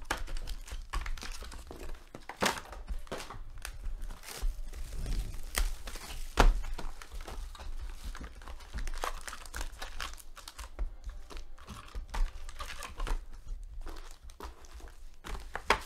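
Foil trading-card packs crinkling and being torn open by hand, with cardboard card boxes being shifted; a sharp click stands out about six seconds in.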